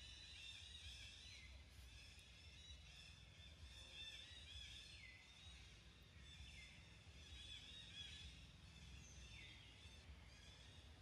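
Faint cicada chorus: a pulsing, high-pitched buzz that swells and then glides down and breaks off every couple of seconds, over a low steady rumble.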